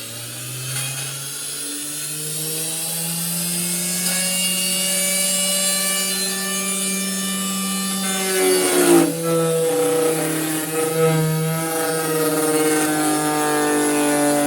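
Homemade wood router's electric motor running at speed with a steady whine. About eight seconds in the pitch sags with a rasp as the spinning cutter bites into the wooden workpiece, and the motor runs on under the load of the cut with a wavering pitch.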